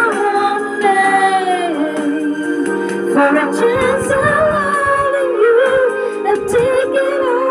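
A song with a singing voice over steady backing music, played through a small portable Bluetooth speaker.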